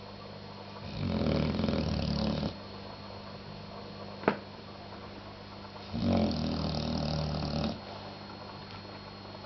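Snoring: two long, rumbling snores about five seconds apart, with a single short sharp click between them.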